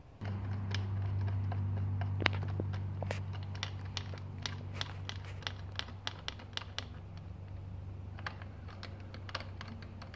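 Small, irregular metallic clicks and ticks as bolts are threaded and worked in by hand on a dirt bike's chain slider and clutch slave guard. Under them, a low steady hum comes on abruptly just after the start and slowly fades.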